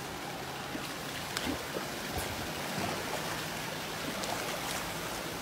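Steady outdoor noise of water and wind, with a faint low hum and a few light clicks.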